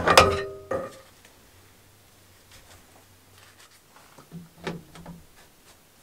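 Tongue-and-groove pliers wrenching a brass PEX adapter tight, ending in a sharp metallic clank that rings briefly. About four seconds in come a few soft knocks as a PVC pipe is pushed into a copper fitting.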